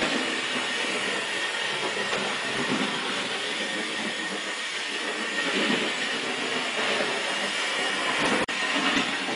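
O gauge model locomotives running on the track: a steady rumble of wheels on the rails, with the hum of the electric motors and a faint high whine. There is a momentary break about eight and a half seconds in.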